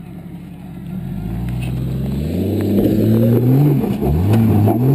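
Jeep Cherokee engine revving hard under load on a steep rock climb. The revs rise from about a second in, dip briefly near the four-second mark, then climb again as the engine gets louder.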